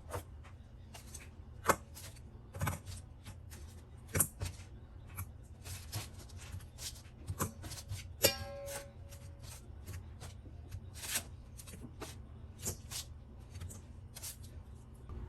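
Light, irregular clicks and knocks of kitchen utensils against cookware while sauce is stirred and heated in a saucepan, over a steady low hum. A short ringing tone about 8 seconds in.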